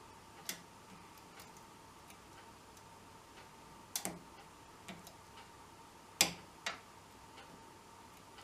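Scattered sharp metallic clicks and taps from handling an old filing cabinet's lock and its metal fittings, a pair about four seconds in and the loudest about six seconds in, over a faint steady high hum.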